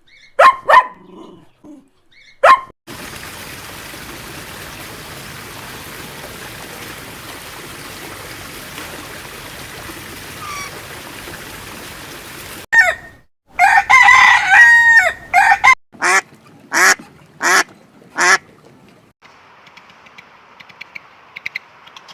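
A series of animal calls: a few short calls, a long stretch of steady background noise, then a quick run of pitched calls, followed by four separate short calls.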